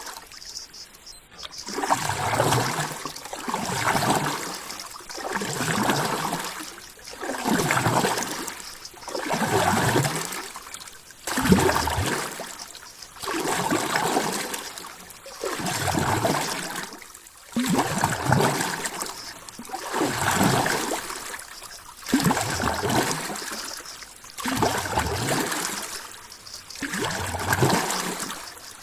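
Water surging and gurgling in regular swells, one about every two seconds, each rising and falling away.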